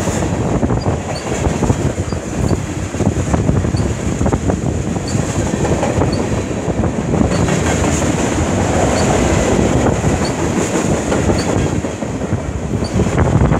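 CN freight train's tank cars rolling past: a steady rumble of steel wheels on rails with repeated clacks over the rail joints.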